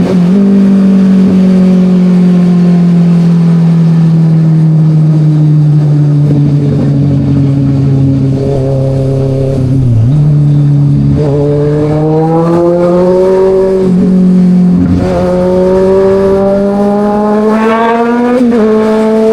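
Kawasaki Ninja 1000's inline-four engine under way. It runs at a steady, slowly falling pitch for about ten seconds, then pulls hard through the gears: twice the revs climb in a rising whine, each climb cut by a quick upshift, the second about a second and a half before the end.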